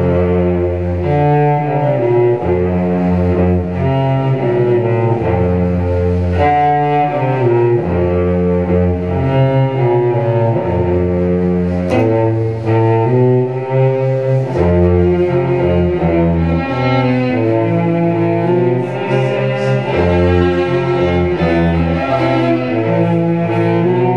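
Solo cello played with the bow: an instrumental passage of low, sustained notes changing every second or so in a steady rhythm.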